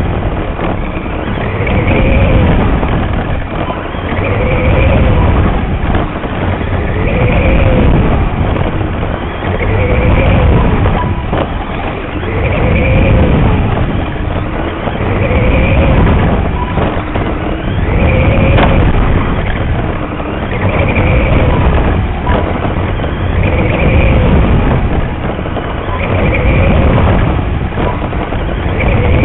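Radio-controlled mini late model race car's motor and drivetrain heard close up from a camera mounted on the car, over a steady rumble. The whine rises and falls once every lap, about every two and a half seconds, as the car speeds down the straights and lifts for the turns.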